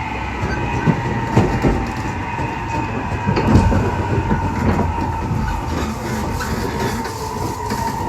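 Running sound of a 415 series 1500-subseries electric train, a resistor-controlled set with MT54 traction motors, heard from inside the car. A low rumble with clicks of wheels over rail joints, and a steady high-pitched whine over it: the odd jet-like noise this set makes.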